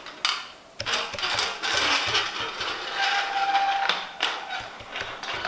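A steel fork spring being slid down inside a dirt-bike fork tube: metal scraping and rustling, with a sharp clink near the start and another about four seconds in.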